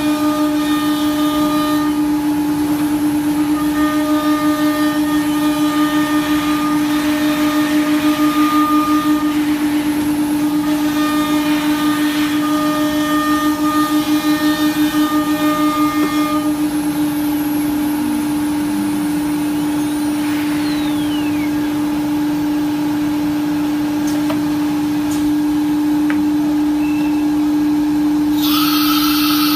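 CNC wood router spindle running with a steady whine while routing grooves into a wood board. A sharper, higher whine comes and goes in stretches through the first half, and a short hiss sounds near the end.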